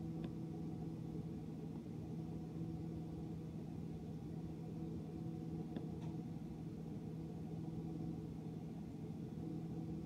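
GE dishwasher running mid-cycle: a steady low motor hum with a faint tick near the start and another about six seconds in.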